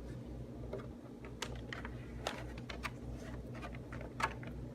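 Scattered light ticks and clicks of fingers handling a clear polycarbonate RC car body, pressing down the masking tape edges, over a steady low background hum.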